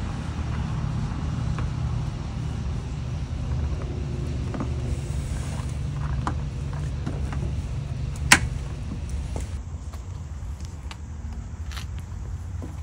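Plastic push pins being worked into the holes of a rubber floor mat by hand: small clicks and handling noises, with one sharp click about eight seconds in, over a steady low background rumble.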